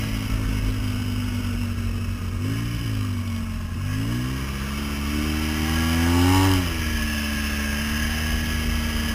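Polaris RZR side-by-side's engine, heard from inside the cab while driving. It runs at steady revs, rises and falls briefly about two and a half seconds in, then revs up for a couple of seconds before dropping back and holding steady.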